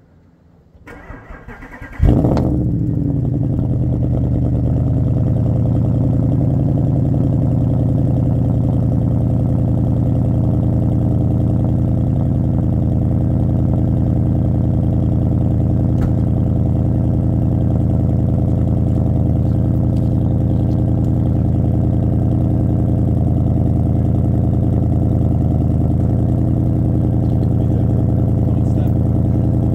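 Audi S5's 4.2-litre V8 cold start: the starter cranks for about a second, the engine catches with a loud flare of revs about two seconds in, then settles into a steady idle heard at the exhaust.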